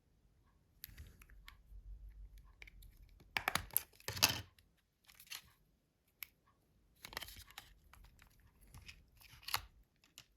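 Nokia C2-06 mobile phone's plastic housing being handled and worked by hand: scattered small clicks and short scraping rustles, the loudest about four seconds in and again near the end.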